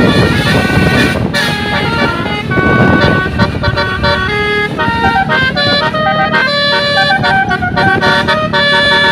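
Bus telolet horn playing a quick melody of shifting notes, one pitched note after another, over low engine rumble.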